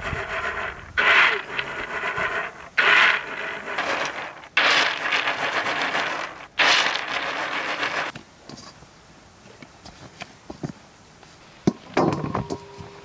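Roasted hazelnuts rattling and sliding across a large wooden tray as they are tossed to shake off their papery skins, a swishing rattle about every two seconds. The tossing stops about eight seconds in, leaving only a few faint clicks, and there is a short knock and rattle near the end.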